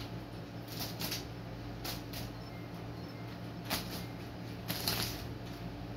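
Short rustles and scuffs of bedding as a British Shorthair kitten scampers and pounces on a bed, four or five brief bursts with the loudest about five seconds in, over a steady low hum.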